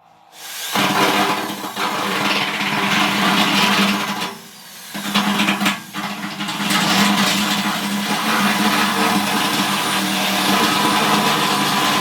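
Handheld electric power tool running under load against sheet metal, a steady motor hum under a harsh high grinding noise, widening a headlight hole. It cuts out briefly about four seconds in, then starts again and runs steadily.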